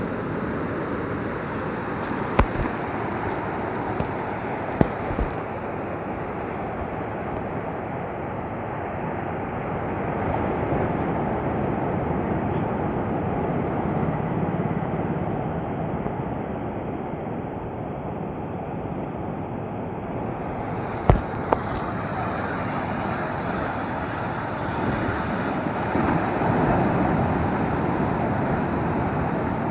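Sea surf washing on a beach as a steady rush, swelling louder twice as waves come in. A few sharp clicks cut through it, a couple near the start and one about two-thirds of the way in.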